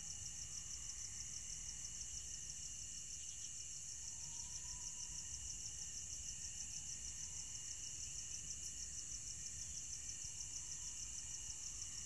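Crickets chirping at night in a steady chorus: a high, rapid, evenly pulsing trill, with a fainter lower insect chirring underneath.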